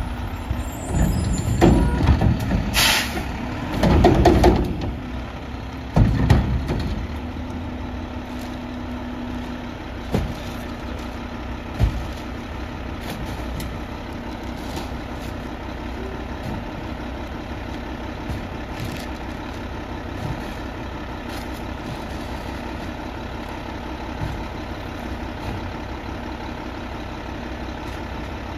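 Mack LEU garbage truck's diesel engine idling while stopped, with several loud bangs and a short, sharp air-brake hiss about three seconds in. After about seven seconds it settles into a steady idle broken by a couple of single knocks.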